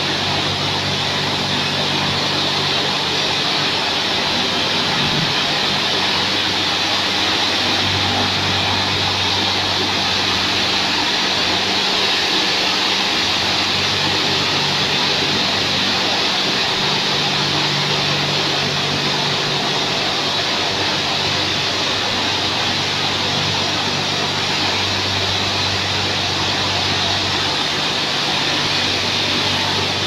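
Touchless car wash's high-pressure water jets spraying a car, a loud steady hiss, with a low machine hum underneath that steps between two pitches every few seconds.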